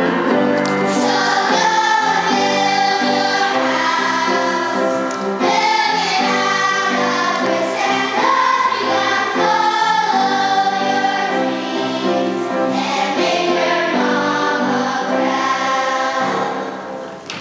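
Children's choir singing a song from a school musical. The singing fades away just before the end.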